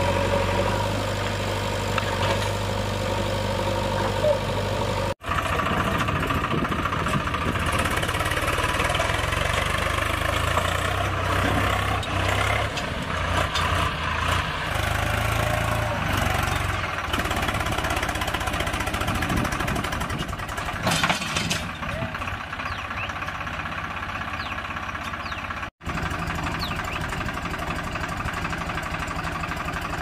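Diesel engines working hard: for the first five seconds a JCB 3DX backhoe loader's engine runs. After a cut, a Swaraj 735 FE tractor's three-cylinder diesel labours under heavy load, pulling a trailer heaped with sand through loose ground with its front wheels lifting off. The sound drops out briefly twice where the video cuts.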